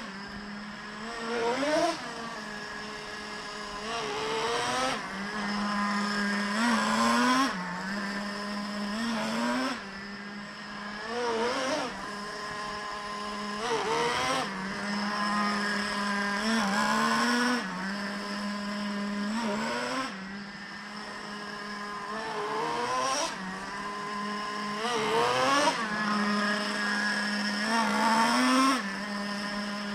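Traxxas 3.3 two-stroke nitro engine idling steadily, with quick throttle blips every two to three seconds that sweep up in pitch and fall back to idle. The engine is new and being run in on its second break-in tank.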